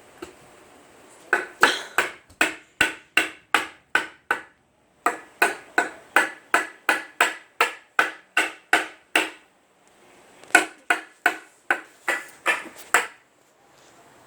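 A child banging a hard object that rings on each hit, about three strikes a second in three runs, with short pauses between the runs.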